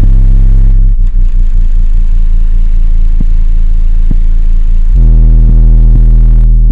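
Car subwoofers playing very loud, bass-heavy music, the deep low notes changing abruptly about a second in and again about five seconds in.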